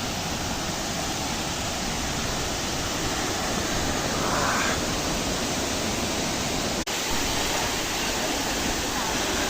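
Steady rushing noise of a waterfall, with a brief gap about seven seconds in.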